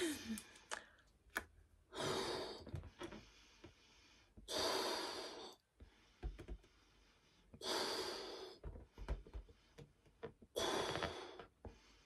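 A person blowing up a balloon by mouth: four long breaths pushed into it, about one every three seconds, with faint clicks in between.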